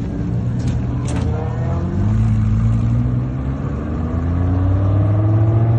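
Audi R8 sports car's engine pulling under throttle, its note climbing steadily from about two seconds in as the car accelerates away.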